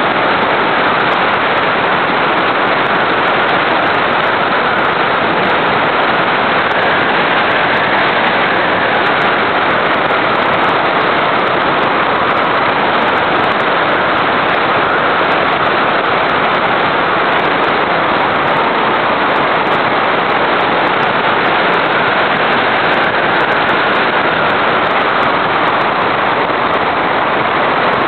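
RC airplane in flight, heard from a microphone aboard it: a steady, loud rushing and crackling of wind and motor, with a faint whine that drifts a little in pitch.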